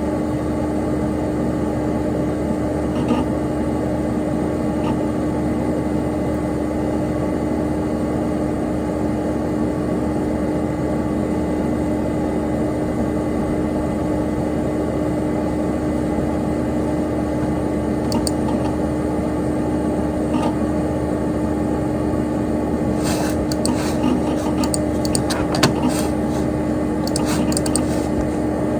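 Dell Dimension XPS P100c desktop computer running: the steady whirring hum of its cooling fan with one constant low tone. A run of sharp clicks comes over the last few seconds.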